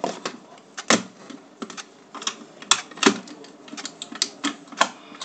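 Irregular clicks, taps and light knocks of a pistol being handled and worked apart on a tabletop, with a small screwdriver at it, after its screw has been taken out. The sharpest clicks come about a second in and about three seconds in.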